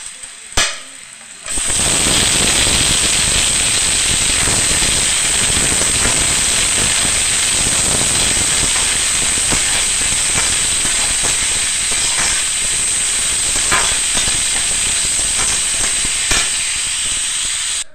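Chopped tomatoes frying in hot oil with onion and garlic in a kadhai: a loud, steady sizzle full of small crackles with a high hiss. A few clicks come first, then the sizzle starts suddenly about a second and a half in and cuts off just at the end.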